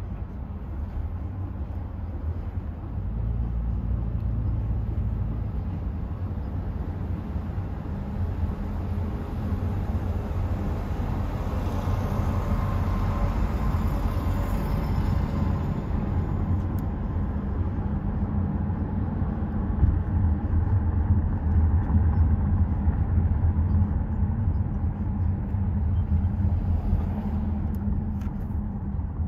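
Steady low rumble of a car driving, heard from inside the cabin, with road and wind noise.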